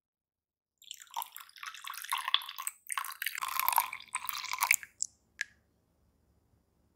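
Milk poured from a glass measuring cup into a glass mixing bowl, splashing and gurgling as it fills, stopping just before five seconds in. A single last drip falls about half a second later.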